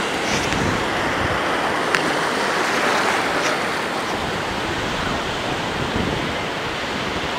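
Ocean surf: a big breaking wave's whitewater rushing up the beach, a steady rush of noise that swells slightly around the middle. A brief click comes about two seconds in.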